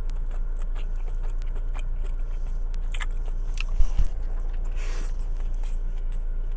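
Close-up biting and chewing of a fried chicken sandwich, with scattered crisp crunches of the breading and two louder low thumps about four seconds in, over a steady low hum.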